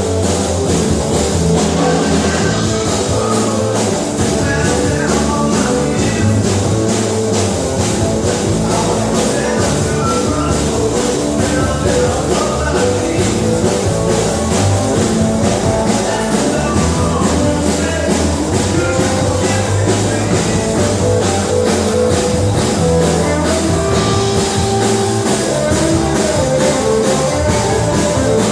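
Rock music with guitar and drum kit playing steadily.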